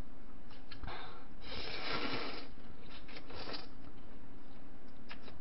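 Ramen noodles being slurped in a few airy sucks, the longest lasting about a second, over a faint steady hum.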